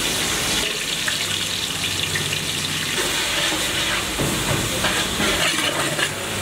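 Sliced onions sizzling as they fry in hot oil in a large aluminium pot. From about four seconds in, a long metal ladle stirs and scrapes against the pot.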